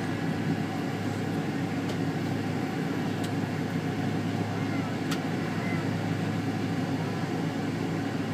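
Steady low drone inside the passenger cabin of a McDonnell Douglas MD-82 on the ground, with a constant hum and a few faint clicks.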